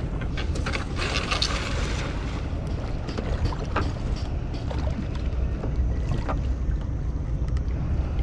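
Small pull-start boat engine running steadily under way, with wind buffeting the microphone and a brief hissing rush about a second in.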